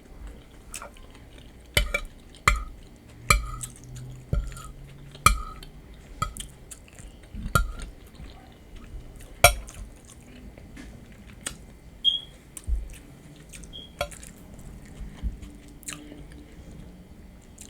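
Close-miked chewing of crunchy nachos, with sharp crunches about once a second, most frequent in the first ten seconds.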